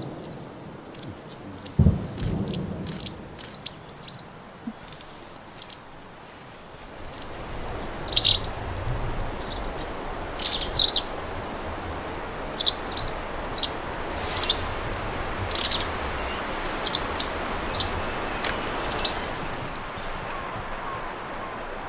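Small birds chirping in a series of short, high calls spaced a second or so apart, with a low thump about two seconds in. An even rushing background comes up from about seven seconds in.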